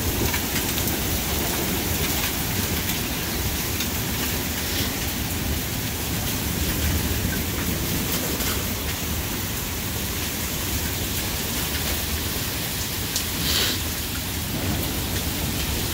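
Heavy thunderstorm rain pouring steadily, with low thunder rumbling underneath.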